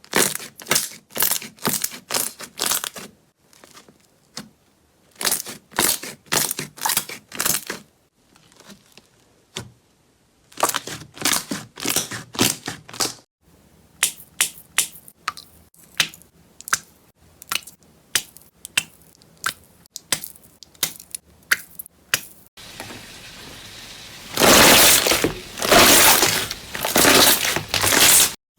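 Slime being squeezed and pressed by hand, giving clusters of sharp crackling and popping clicks. Near the end it turns into a denser, louder crunching.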